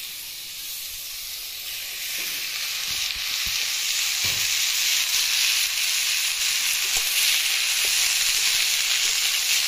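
Chopped bottle gourd frying in hot oil in a metal kadai: a loud sizzle that grows over the first few seconds as the pile of gourd goes in, then holds steady while it is stirred with a metal spatula, with a few soft knocks.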